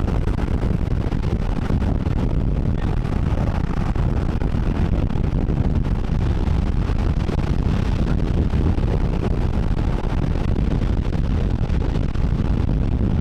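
Strong tornado inflow wind buffeting the microphone: a loud, steady low rumble and rush with no distinct events.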